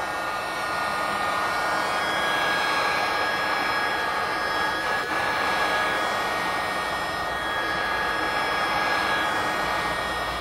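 Industrial heat gun running steadily: a rush of blown air with a steady high whine from its fan.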